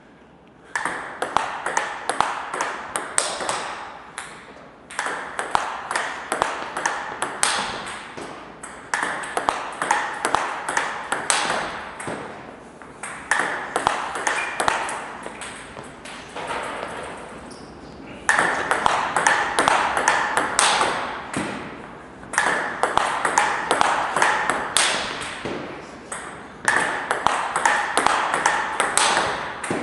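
Table tennis rally drill: a celluloid-type ball clicks rapidly off rubber-faced rackets and bounces on the table, with sharper, louder smash hits among the blocks. It comes in runs of a few seconds, with short breaks between rallies, as forehand smashes are played against block returns.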